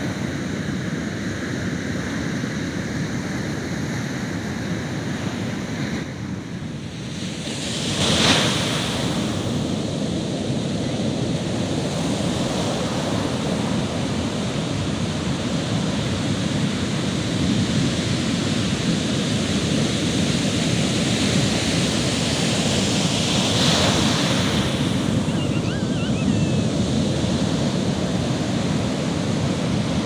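Ocean surf breaking along the shore: a continuous rush of water, with a louder wave crash about eight seconds in and another about two-thirds of the way through.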